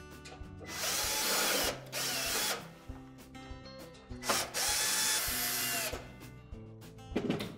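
Cordless drill/driver backing screws out of a range's sheet-metal back panel: two spells of the motor running, each a second or two long, the first about a second in and the second about four seconds in, its whine dipping and rising as the screw comes loose.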